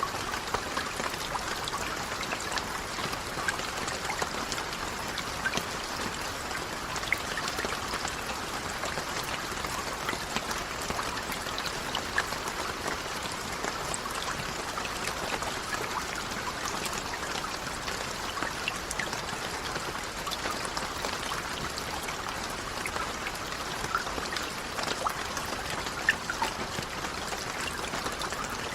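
Steady rain: a dense, even hiss of falling water with many separate drop splashes ticking through it.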